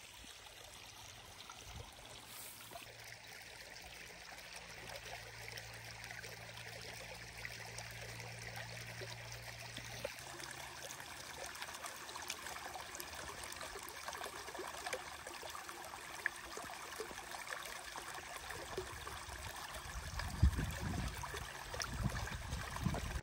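Rain and snowmelt runoff streaming and trickling across the ground in a steady, rushing flow that slowly grows louder, with a few low bumps on the microphone near the end.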